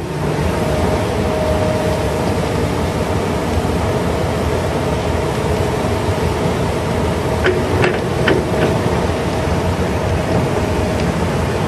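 Komatsu six-cylinder turbo diesel engine of a 2003 Komatsu PC200LC-7 excavator running steadily. A few light clicks come about three-quarters of the way in.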